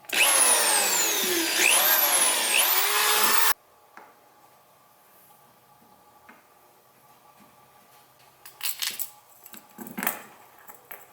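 Power drill running into the kayak's plastic hull for about three and a half seconds, its pitch falling and rising as the trigger is eased, then stopping suddenly. A few light knocks and handling rattles follow near the end.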